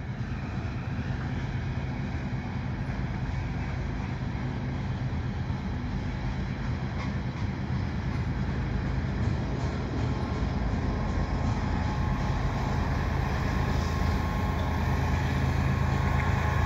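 Freight train rolling past: loaded tank cars running on the rails, with the low drone of the rear pushing locomotive, a Union Pacific GE ES44AC diesel, growing steadily louder as it approaches.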